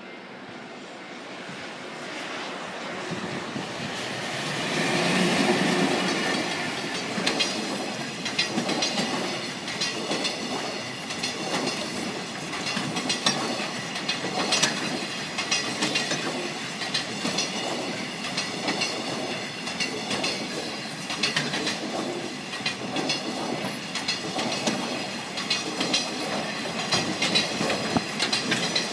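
Freight train passing over a level crossing: the train's sound grows to its loudest about five seconds in as the locomotive goes by, then the wagons' wheels clatter steadily over the rail joints.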